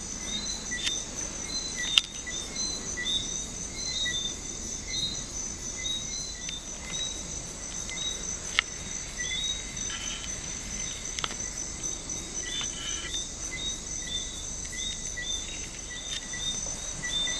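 Night rainforest insect chorus: a steady high-pitched trill, with a short chirp repeating about twice a second. Two sharp clicks, about two seconds in and near the middle.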